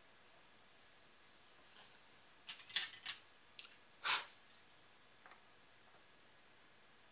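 A few light clicks and knocks from hands working the metal tool head of a small bench-top hand shaper: a quick cluster about two and a half seconds in, then a single louder click about a second later.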